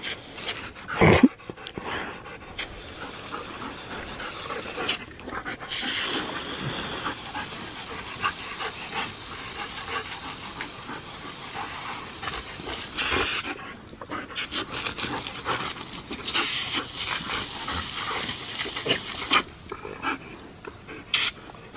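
A German Shepherd panting while a garden hose spray nozzle hisses steadily, the water jet spattering as she snaps at it. A loud sharp thump comes about a second in, and the spray dies away near the end, leaving the panting.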